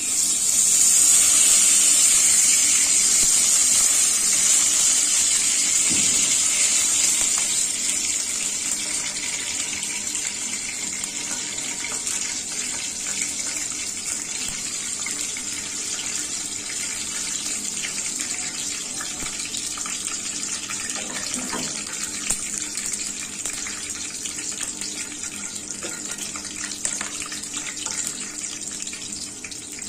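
Cooking oil poured into a hot steel kadai over whole bay leaves and spices, sizzling: a sudden loud hiss that eases after about eight seconds into a steady, quieter sizzle with light crackling.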